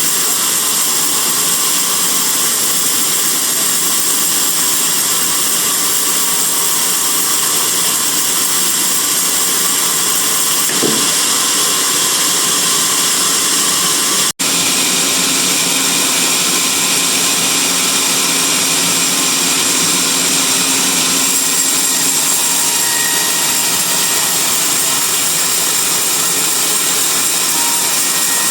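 Sawmill band saw and its motor running steadily, a loud even machine noise with a strong high hiss, broken once about halfway through by a split-second dropout.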